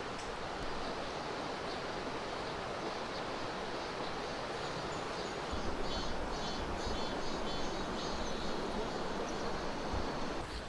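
Steady rush of water flowing over rocks in a mountain valley stream.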